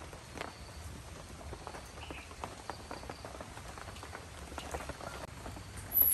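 Wood fire crackling under a wok, with scattered light pops and ticks. A brief, louder high-pitched sound comes near the end.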